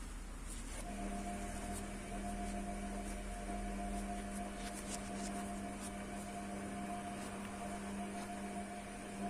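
A steady machine hum starts about a second in and holds one even tone.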